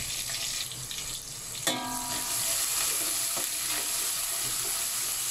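Chopped onion frying in hot oil in a pan, a steady sizzle that grows louder about two seconds in. A brief ringing tone sounds at the same moment.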